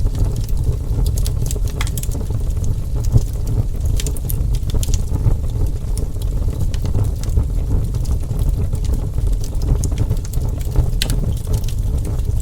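Wood fire burning with irregular sharp crackles and pops over a steady low rumble.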